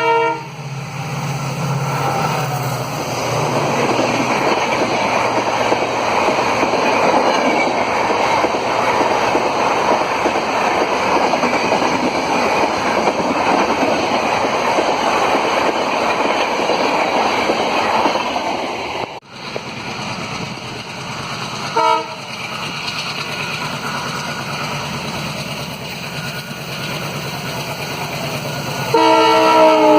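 Indian Railways express train passing at speed, a steady rush and rumble of wheels on the rails. Later a locomotive horn sounds a short chord-like blast, then a longer one near the end.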